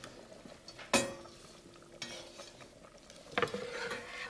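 Kitchen utensils clinking and scraping against a roasting pan and a steel stockpot during stirring. One sharp clink about a second in rings on as a clear tone for over a second, and another knock comes near the end.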